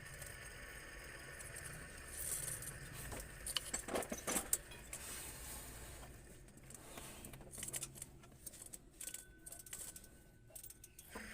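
Light metallic clinking and rattling, in scattered clicks with a brief louder cluster about four seconds in, over a faint steady low hum.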